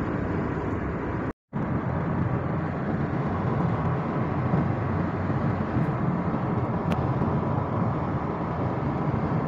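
Steady road noise of a moving car heard from inside the cabin, a low rumble of tyres and engine. It cuts out briefly about a second and a half in.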